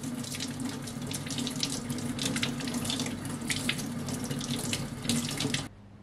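Kitchen tap running into the sink, water splashing unevenly, then shut off suddenly near the end.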